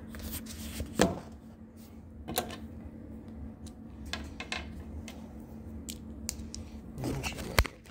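Handling noise as the phone camera is moved around and small tools are handled: scattered clicks and taps, with a sharp knock about a second in and another near the end.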